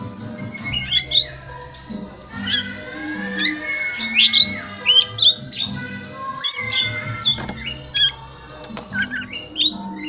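Oriental magpie-robin (kacer) song: a run of short, sharp whistled notes sweeping up and down, with a few longer held whistles, played as a lure recording to rouse a kept bird. Background music with sustained low notes plays under it.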